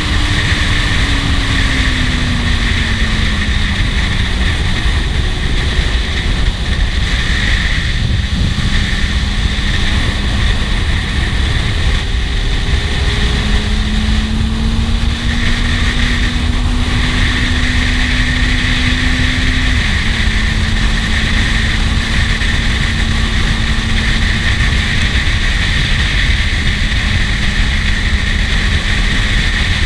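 Kawasaki Z750S inline-four engine running under way, heard from the rider's seat with heavy wind rush over the microphone. The engine note falls in pitch over the first few seconds and then holds steady. It climbs slowly for several seconds and drops suddenly about twenty seconds in, then holds steady again.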